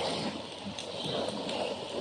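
Water splashing and gurgling in uneven surges.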